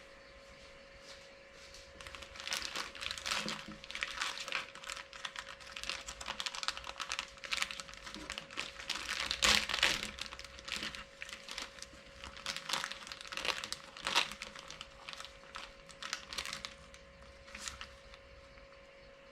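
Packaging crinkling and rustling in irregular bursts as it is handled. It starts about two seconds in, is loudest around the middle and dies away near the end, over a faint steady hum.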